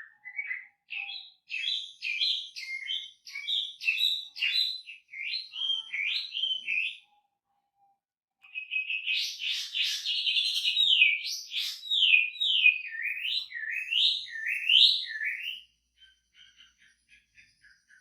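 Chinese hwamei singing: a run of quick, varied whistled notes, a short pause, then a louder series of repeated slurred whistles. Near the end only faint chips remain.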